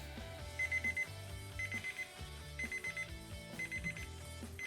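Digital kitchen timer going off: a high-pitched group of rapid beeps repeating about once a second, signalling that the seven-minute cooking time is up. Soft background music plays underneath.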